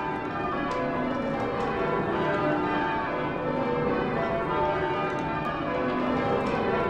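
Church bells in change ringing: a full peal of many bells struck one after another in continuous overlapping rounds, their tones hanging over one another at a steady level.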